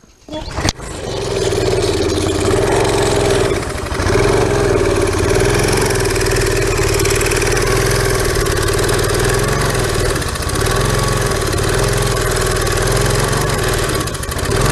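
Briggs and Stratton small engine on a pressure washer starts about half a second in and runs, its speed wavering and dipping briefly twice. It is running with old gasoline still in its fuel system, which may carry some debris.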